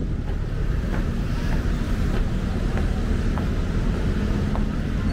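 Wind buffeting a small handheld camera's microphone: a steady low rumble, with a few faint light ticks scattered through it.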